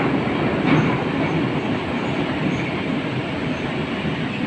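Interior noise of an 81-722.1 metro car running between stations: a steady rumble of wheels on rail, with one faint clack about a second in.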